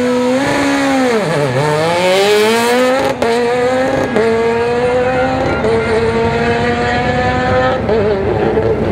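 Peugeot 207 rally car's engine revving as it pulls away and accelerates: the note dips about a second and a half in, then climbs steadily, with two short breaks at gear changes about three and four seconds in, and holds steady near the end.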